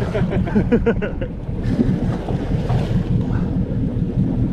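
Wind buffeting the microphone over the low rumble of a boat and sea water, with a quick run of clicks in the first second.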